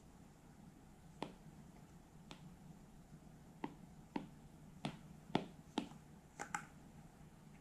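Apple Pencil's plastic tip tapping on an iPad's glass screen: about nine faint, sharp clicks at uneven spacing as it taps the colour picker and sets down strokes. A faint steady low hum lies underneath.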